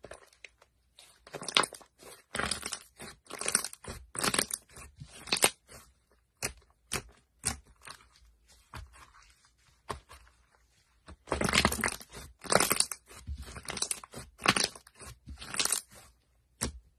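Thick slime being stretched, squeezed and pressed by hands, giving irregular sticky crackles and pops. The crackling comes in dense runs, about a second and a half in and again from about eleven seconds, with sparser pops in between.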